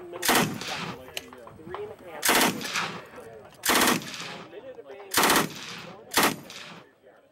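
A fully automatic firearm fired in five short bursts of rapid shots, each burst about half a second long, spaced a second or so apart.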